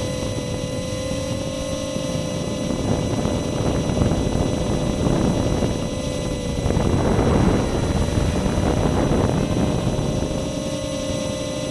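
Walkera QR Ladybird micro quadcopter's motors and propellers whining steadily, picked up by the keychain camera riding on it. From a few seconds in, the whine wavers and a rushing noise rises as it manoeuvres. Near the end the rushing eases back to the steady whine.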